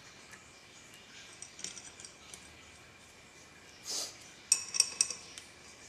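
Steel lathe chuck and backing-plate parts clinking as they are handled: a few light clicks, a short scrape about four seconds in, then a quick cluster of sharp metallic clinks.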